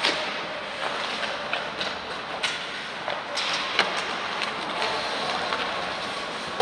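Ice hockey play on the rink: skates scraping across the ice, with several sharp clacks of sticks and puck, over a steady hiss of rink noise.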